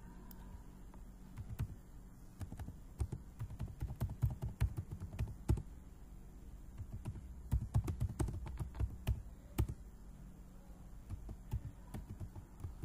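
Typing on a computer keyboard: rapid keystroke clicks in bursts, with short pauses between them.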